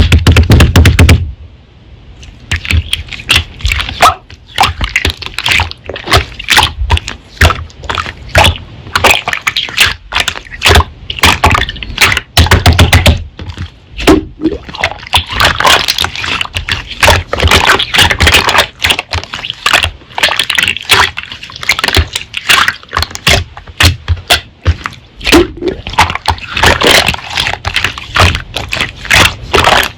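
Slime being squeezed and poked by hand: a dense, irregular run of sticky clicks, pops and crackles, heavier at the very start and again about thirteen seconds in.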